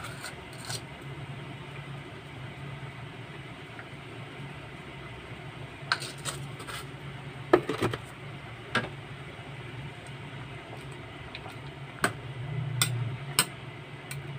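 Kitchen cookware sounds: scattered sharp clinks and knocks of a pot and utensils over a steady low hum. The clinks come singly about halfway through, with the loudest one there, and cluster again near the end.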